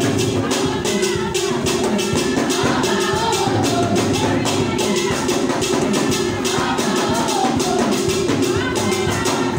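Music with a fast, steady percussion beat under a melody.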